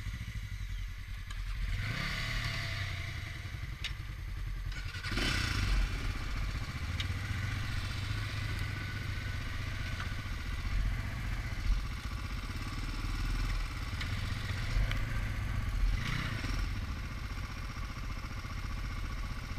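ATV engine running as it pulls away and rides a dirt trail, the revs rising about two seconds in, again at five seconds and near sixteen seconds. A few knocks and clatter are heard over the bumps.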